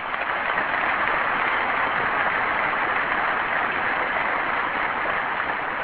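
Audience applauding, a dense steady clapping that swells up quickly and fades away near the end.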